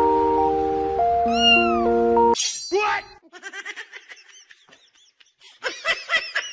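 Background music with held notes, then after a sudden cut a cat meowing, followed by a run of short, high mews repeated several times a second near the end.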